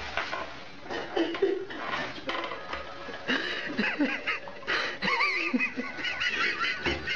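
A person laughing in high-pitched, wavering bursts, mostly in the second half, over light knocks and clatter.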